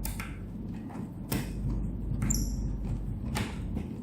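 Hands working a laptop's screen-hinge mount loose from its case: a few separate clicks and knocks of plastic and metal parts about a second apart, one with a short high squeak about two seconds in.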